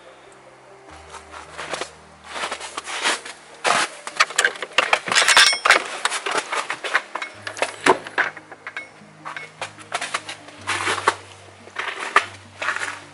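Irregular clattering knocks and clinks of things being handled in a small room, over background music with slow, low notes.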